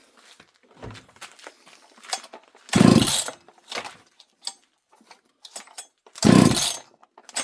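Two pulls on a two-stroke chainsaw's recoil starter, each a short burst of the engine being cranked over, about three seconds apart. The saw does not start. Small clicks and handling knocks come between the pulls.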